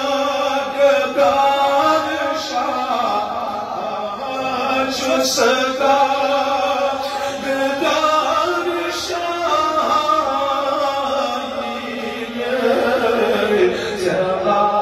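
A solo male voice singing a naat, a devotional poem in praise of the Prophet, in long held and bending melodic lines.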